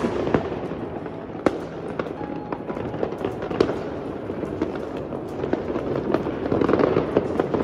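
Fireworks going off at a distance: irregular sharp bangs and crackles over a constant din of many more, growing somewhat louder near the end.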